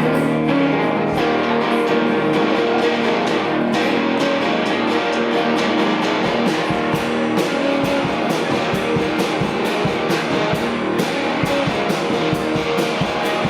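Live rock band playing an instrumental intro before the vocals come in: strummed electric guitars over bass and a steady drum beat.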